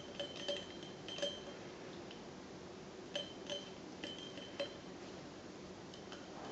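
A plastic toothbrush clinking and rattling against a ceramic mug as a puppy chews and tugs at it. It makes a series of light clinks, each with a brief ringing, in irregular clusters: several near the start, one about a second in, and a run between three and four and a half seconds in.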